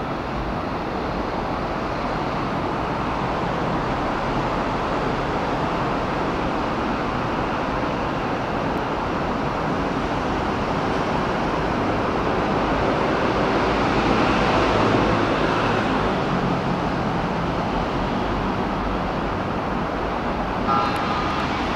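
Keikyu 1000 series electric commuter train approaching along the track, a steady rumble of wheels and motors that swells about two-thirds of the way through. A brief tone sounds near the end.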